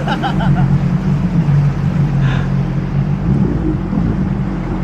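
An engine running steadily at low revs, a constant hum, with brief voices at the start and about two seconds in.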